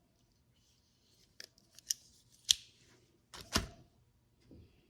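Small metal hand tools being handled in a toolbox drawer: a few sharp clicks and light knocks as they are picked up and set down, the sharpest click about halfway through and a heavier knock soon after.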